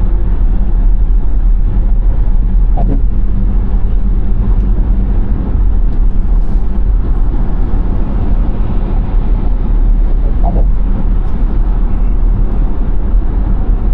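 Steady low road rumble and engine noise of a car driving at speed, heard from inside the cabin.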